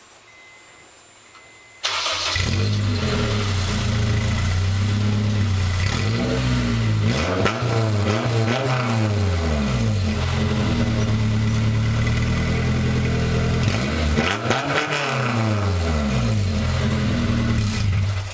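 Honda S2000's 2.0-litre four-cylinder engine, heard through its exhaust, comes in abruptly about two seconds in and idles. It is revved up and back down twice, then cuts off suddenly near the end.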